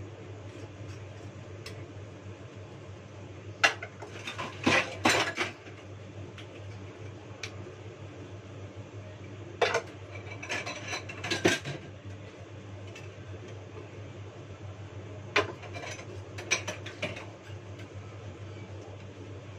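Dishes, metal pans and cutlery clattering in a sink as they are washed by hand, in three bursts of clinks and knocks a few seconds apart, over a steady low hum.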